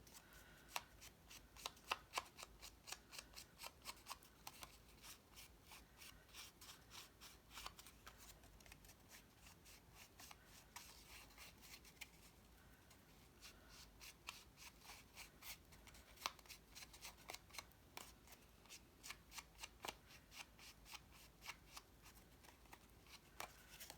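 Faint quick scratchy strokes of brown ink being rubbed along the cut edges of cardstock pieces, a few strokes a second in runs with short pauses.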